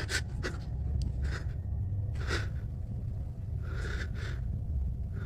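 A man's nervous breathing, several short airy breaths a second or so apart, over a steady low rumble from a handheld phone microphone.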